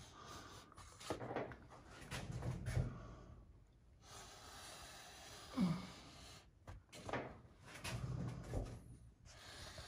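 Knife blade slicing wallpaper along a straightedge held against the ceiling: faint, irregular scraping strokes with paper and handling rustle.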